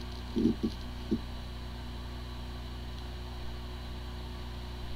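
Hard disk drive spinning with a steady hum, with a few short low buzzing sounds in the first second or so. The drive sounds as if it spins normally, the symptom that can point to disk firmware corruption when the drive is not accessible.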